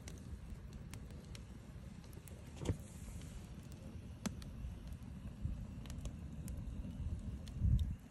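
Wood fire burning in a stove built from stacked steel wheel rims, with scattered crackles and pops over a low steady rumble. A sharper knock comes about a third of the way in and a louder low thump just before the end.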